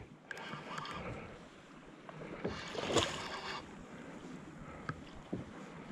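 Sea water lapping and splashing softly around a kayak, with a few short knocks and splashes and a louder spell of splashing about three seconds in.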